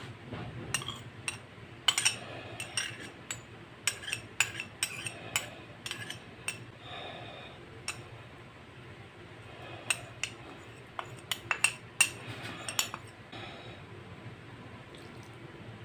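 Utensil clinking and tapping against a metal bowl while seasonings are spooned onto raw pork chops: a run of irregular sharp clinks that thins out near the end.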